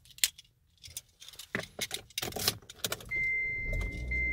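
Scattered clicks and rattles of something being handled, like keys jangling. About three seconds in, a steady high electronic beep starts over a low rumble.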